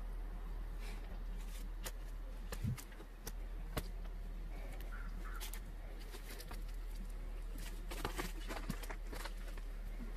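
Wooden sticks strung with eulachon being handled and set onto the smokehouse's wooden rails: scattered light clicks and knocks of wood on wood over a steady low hum.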